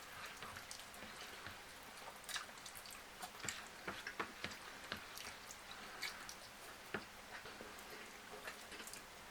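Close-miked eating sounds: irregular wet clicks and smacks of a person chewing food.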